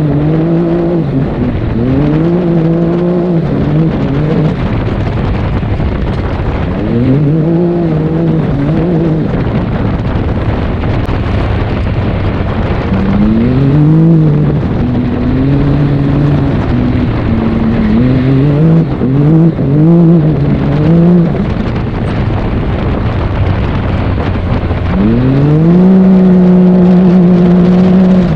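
Can-Am Maverick X3 X-RC Turbo RR's turbocharged three-cylinder engine, tuned to about 200 hp and running through an HMF single exhaust, revving up and easing off again and again under hard driving, then held at high revs for the last few seconds. A steady rush of tyre and wind noise runs underneath.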